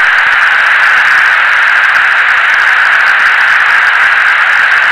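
Steady hiss of a fighter jet's cockpit intercom and radio audio, with no voices over it.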